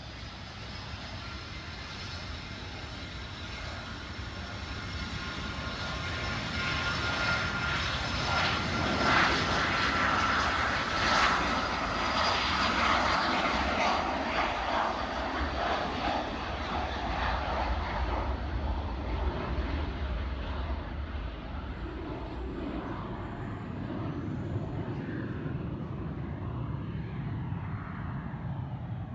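Hawker 800XP business jet's twin turbofans at takeoff power. A rumble with a high whine swells to its loudest about ten seconds in as the jet rolls past and lifts off, the whine sinking slightly in pitch, then fades slowly as it climbs away.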